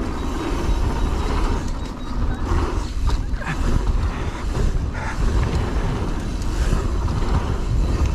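Mountain bike ridden fast down a rough enduro trail: a continuous rumble of tyres and bumps with the bike clattering and rattling, and a few sharp knocks.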